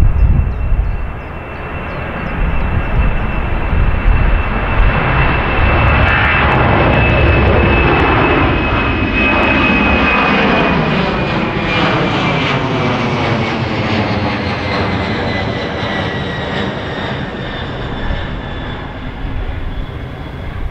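Airliner engines at takeoff power: a steady rumble with a high whine that slowly drops in pitch. The sound dips briefly near the start, then swells to its loudest through the middle and slowly fades.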